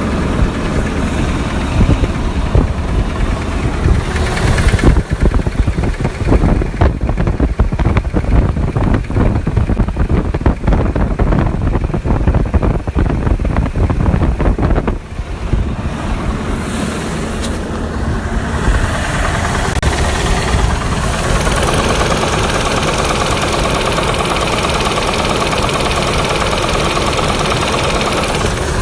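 Car engine running with a fast, even knocking tick; the owner can't tell whether it is rod knock or lifter tick. About halfway through the knocking fades, and the engine runs on with a steadier, brighter sound.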